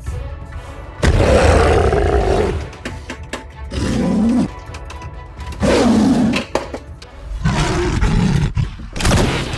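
Several dubbed beast-roar sound effects over background music: the longest roar comes about a second in, and shorter ones follow every second or two.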